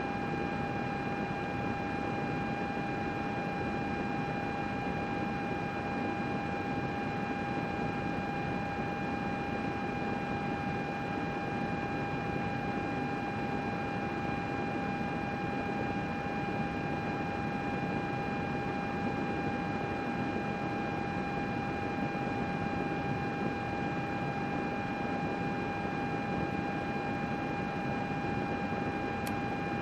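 A computer running, its cooling fans whirring steadily: an even rushing hiss with a constant high whine on top.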